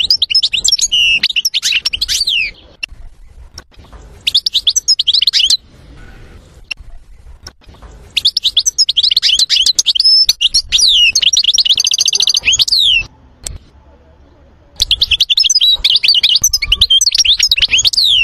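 European goldfinch singing: fast, varied runs of twittering notes, trills and sweeping whistles in four bursts, with quiet pauses of one to two seconds between them.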